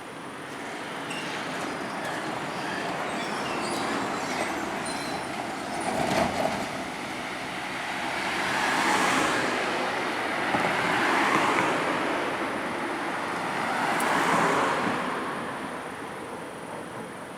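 Road vehicles going by, their tyre and engine noise swelling and fading several times.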